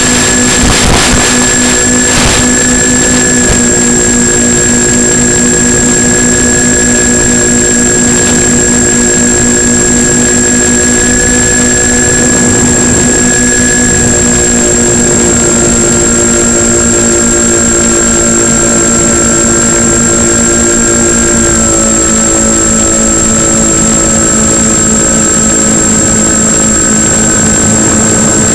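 Twin electric motors and propellers of a Multiplex Twinstar 2 model plane in flight, picked up by an onboard microphone: a steady, loud droning whine with a slight pulsing, stepping down a little in pitch a few times. A constant high-pitched whine sits above it.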